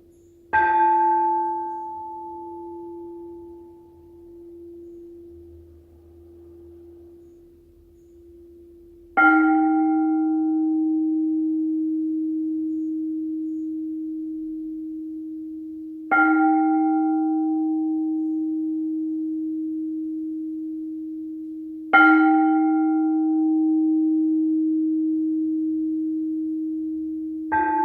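Quartz crystal singing bowls struck one after another, five strikes several seconds apart. Each strike gives a brief shimmer of higher overtones over a long, steady low tone that rings on between strikes, and the pitch of that tone shifts slightly as a different bowl is played.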